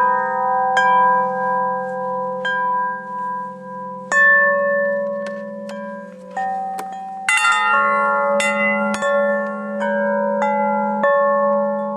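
Chimes ringing: a string of struck, bell-like notes at several pitches, each ringing on and overlapping the next, with a thicker cluster of strikes about seven seconds in.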